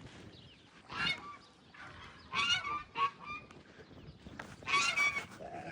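Goose honking: a handful of loud, nasal calls, the longest near the end.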